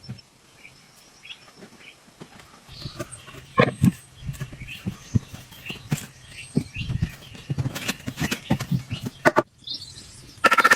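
Irregular knocks, clicks and rustling with some low thuds, over faint bird chirps. Near the end a rapid, even rattle starts.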